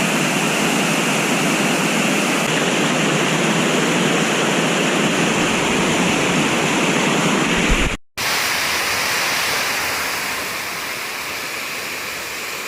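Waterfall rushing steadily, a loud, even wash of falling water. It cuts out for a split second about eight seconds in, then carries on slightly quieter.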